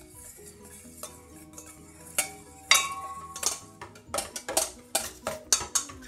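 Metal whisk beating an egg in a stainless steel mixing bowl: sharp clinks against the bowl, a few at first and then about two to three a second from about four seconds in. Quiet background music runs underneath.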